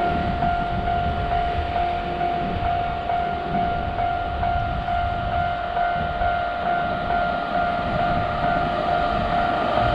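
Japanese railroad-crossing alarm sounding with a steady high tone over the rumble of a passing train.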